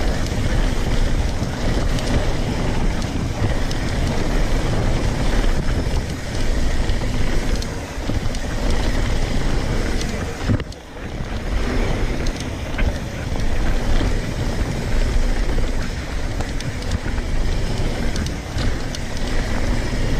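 Wind buffeting a GoPro's microphone during a fast mountain bike descent, mixed with the rumble of knobby tyres on packed dirt and the clicks and rattles of the bike over bumps. The noise drops away briefly about halfway through.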